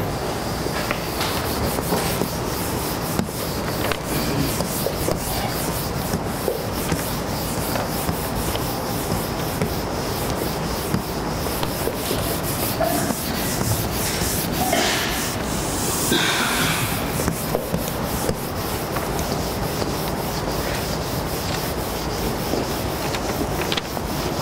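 Cloth wiping a chalkboard clean: a long run of quick rubbing strokes, one after another.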